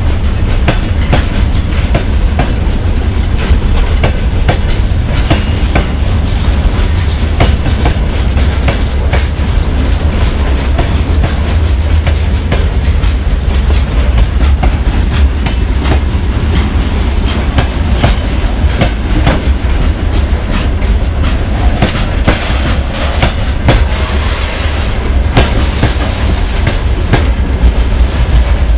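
Freight train wagons rolling past close by: a loud, steady low rumble with the wheels clicking and clattering over the rail joints.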